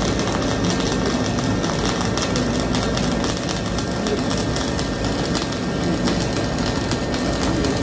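Gas-shielded flux-cored arc welding with ESAB Dual Shield wire: the arc crackles steadily and without a break through a long continuous bead.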